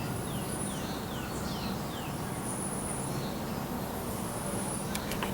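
A songbird calling a quick run of short, downward-sliding notes, about four a second, over steady woodland background, with a thin high tone coming and going in three spells and a couple of clicks near the end.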